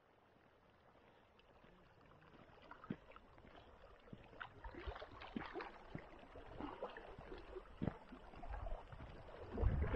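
Faint irregular crunches of footsteps on a gravel lakeshore path, mixed with small waves lapping against the stones at the water's edge, growing louder as it goes. Wind buffets the microphone near the end.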